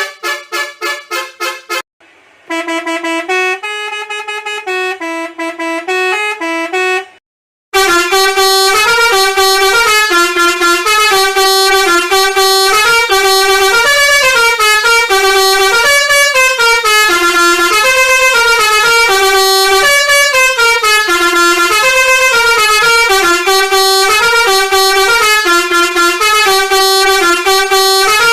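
Basuri bus horn playing tunes: a quick run of pulsed horn notes, a short break, a melody of held notes stepping up and down in pitch, a brief silence about seven seconds in, then a longer, louder melody.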